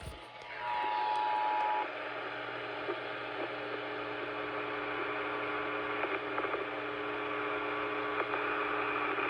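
The Emergency Alert System two-tone attention signal, two steady tones sounding together, heard over a radio feed; it cuts off about two seconds in. After that comes radio hiss with a steady low hum.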